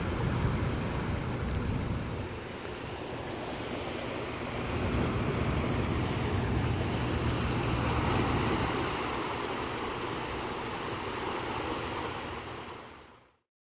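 Turbulent river water churning and rushing below a dam as water is released through its turbines, a steady wash with wind rumbling on the microphone. The sound cuts off abruptly near the end.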